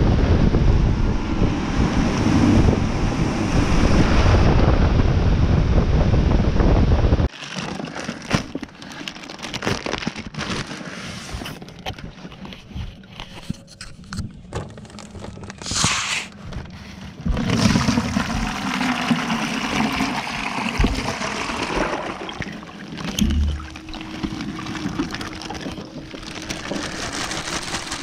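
A boat running on a lake, with wind rushing on the microphone and water noise, cutting off abruptly about seven seconds in. After that, quieter water lapping and gurgling against the boat, with scattered knocks.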